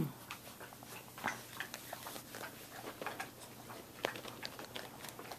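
Samoyed puppies moving about the pen: faint, scattered light taps and clicks of small paws and scuffling, with one sharper click about four seconds in.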